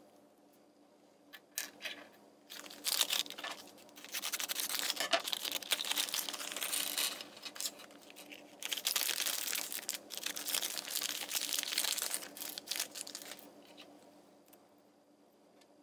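Foil LEGO Minifigures blind bag crinkling and tearing as it is opened and rummaged through, in two long bouts with a short pause between, preceded by a few light clicks.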